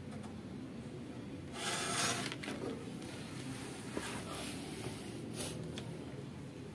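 Handling noise from a TV power-supply circuit board: a short rustle about two seconds in as it is turned over and laid down on paper, then a couple of light clicks as multimeter probe tips touch it.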